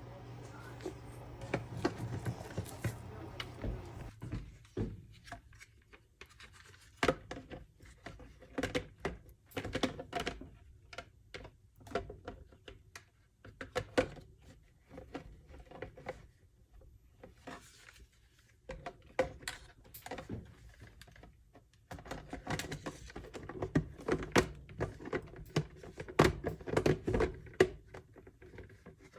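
Irregular clicks, light knocks and thunks of hard plastic and metal parts being handled and set down, coming in clusters and busiest near the end. A steady low hum runs for the first four seconds, then stops.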